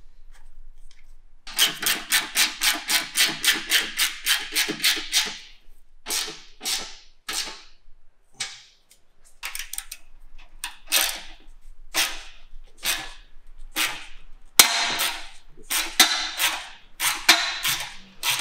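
Hand ratchet wrench clicking as a fuel-tank mounting bolt is tightened: a quick, even run of about four clicks a second for some four seconds, then shorter strokes of one to a few clicks with pauses between.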